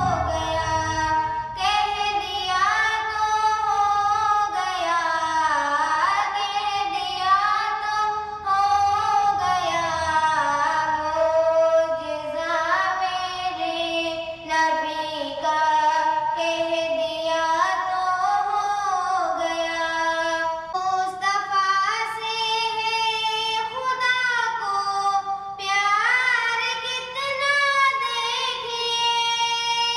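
A girl singing a devotional Urdu naat solo into a handheld microphone: long melodic phrases of held notes with sliding ornaments, broken only by short breaths.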